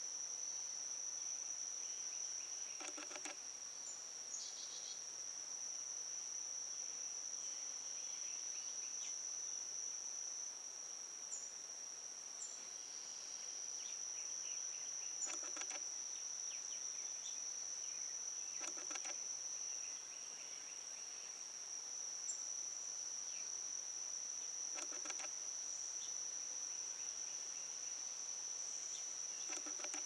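A steady, high-pitched insect chorus that never lets up, with a few faint short bird chips over it and about five brief rattling bursts spread through.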